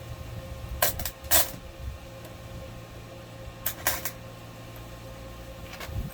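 Steady electrical hum of a welding machine, broken by short, sharp metallic clicks or taps in pairs: about a second in, near four seconds in, and at the end.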